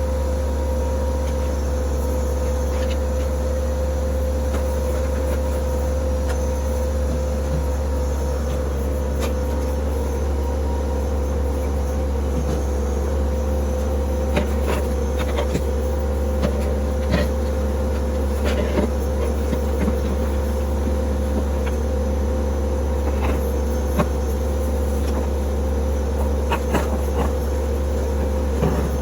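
A steady low mechanical drone with a constant hum, and from about halfway through, scattered short clicks and knocks.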